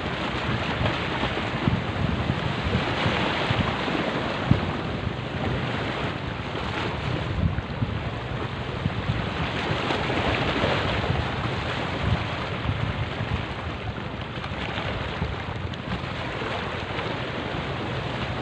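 Small sea waves washing and splashing against the rocks at the foot of a seawall, in uneven surges, with wind rumbling on the microphone.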